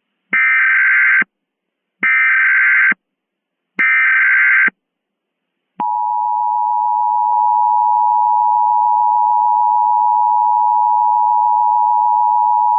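Emergency Alert System broadcast header: three bursts of digital SAME data tones, each just under a second long. About six seconds in, the EAS attention signal starts, a steady two-tone chord (853 and 960 Hz) that holds on.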